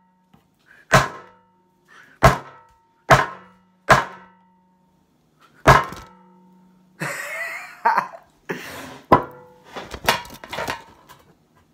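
A cricket ball slammed down again and again onto a Samsung phone on a wooden table: a series of sharp knocks, five in the first six seconds and several more near the end, some followed by a short ringing, with handling noise in between.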